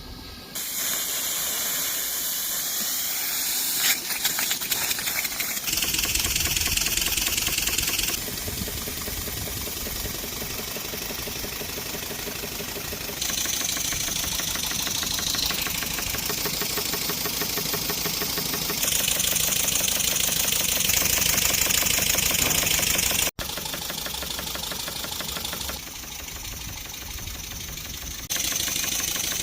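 Double-cylinder full-pressure steam engine running with a fast, even beat of its strokes, under a strong steam hiss that rises and falls. The hiss is steam escaping past worn packings, which need renewing. For the first few seconds there is mostly hiss, and the beat starts about six seconds in.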